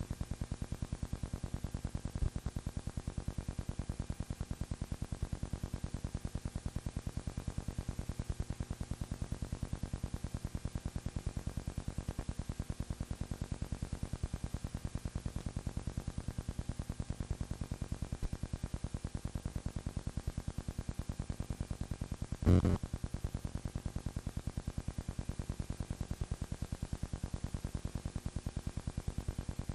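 A steady, rapid, even mechanical clatter over a low hum, unchanging throughout, with a faint click about two seconds in and one loud pop about three-quarters of the way through.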